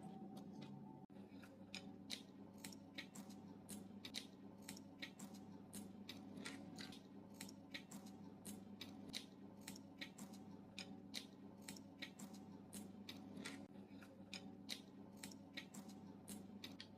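Someone chewing crispy fried chicken close to the microphone: a steady run of small crunches, about three a second, over a faint low hum.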